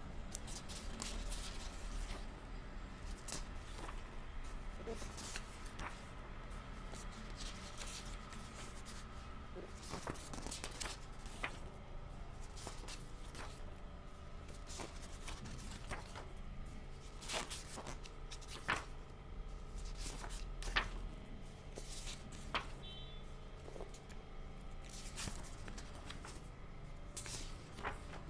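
Pages of a thick printed book being turned by hand: repeated, irregular paper rustles and flicks as the leaves are lifted and laid over, over a steady low hum.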